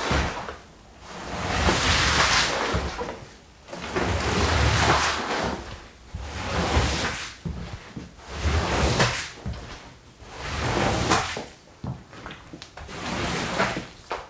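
Long-handled rug squeegee drawn over a soaked, sudsy rug in repeated strokes, about one every two seconds, each a wet swish as it pushes dirty water and foam off the pile.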